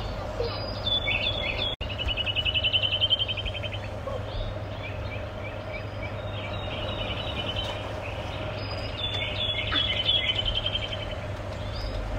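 Small songbirds singing in the trees: repeated high, rapid trills and short chirps, over a low steady rumble.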